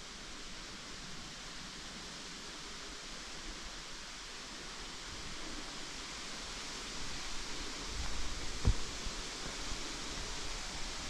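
Forest ambience: a steady rushing hiss that grows a little louder over the last few seconds. Near the end come a few low thumps and one sharp click.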